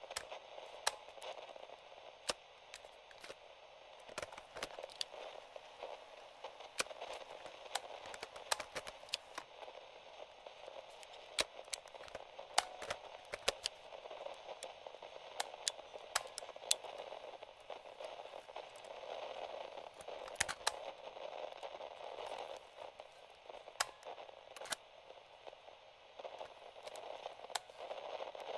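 Vintage portable FM/AM radio-cassette recorder giving off steady static hiss between stations, broken by sharp, irregular crackles and clicks as its tuning knob is turned. No station comes in.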